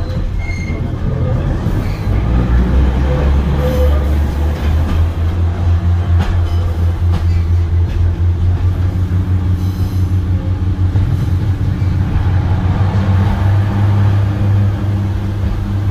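Heritage diesel train running under power: a loud, low engine drone whose pitch steps up a few seconds in and again later on.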